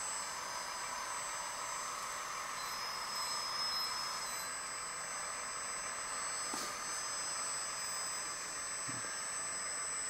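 Electric hydraulic pump and drive motors of a 1/14-scale metal RC skid steer loader running with a steady whine as it drives with a loaded bucket. A couple of faint ticks come late on.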